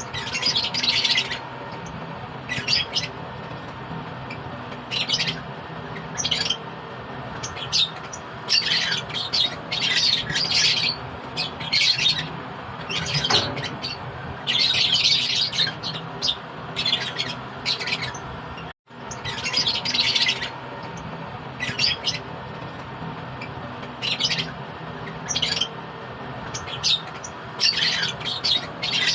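Caged pet birds calling over and over with short, shrill squawks and chirps, in irregular clusters, over a steady low hum.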